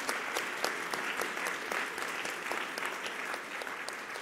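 Audience applauding, a dense steady clapping that begins to thin near the end.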